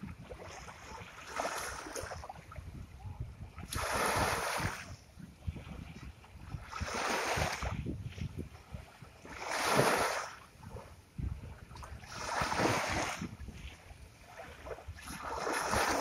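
Ocean waves breaking on the shore, a rush of surf swelling and fading every two to three seconds, the loudest about ten seconds in.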